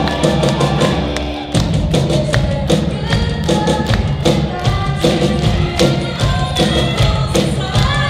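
A student rock band playing a Christmas pop song live: girls' voices singing over drum kit, electric guitars and keyboard. The band thins out for a moment and the full beat comes back in about a second and a half in.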